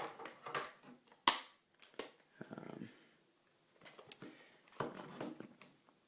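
Hands handling and trying to open a speedcube's packaging: scattered sharp clicks and crackles of plastic and card, with one loud snap about a second in and a short rustle a little later.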